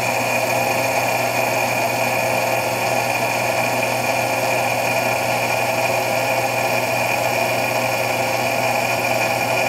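Tsugami lathe running in reverse under power feed while a cut knurling tool cuts a knurl into a 1018 steel bar. It makes a steady machine hum with a constant high whine.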